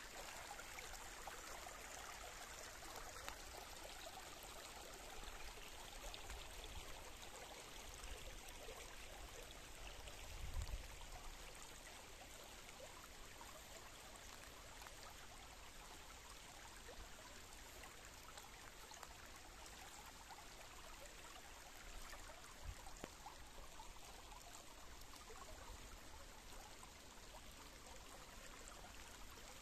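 Shallow woodland stream flowing, a steady faint rush of running water, with a brief low thump about ten seconds in.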